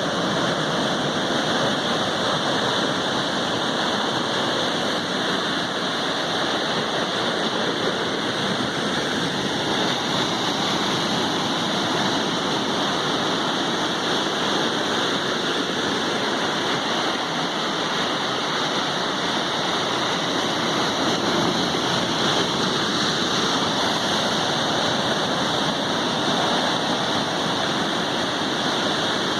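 Sea surf, a steady, even rush of water noise with no distinct wave breaks standing out.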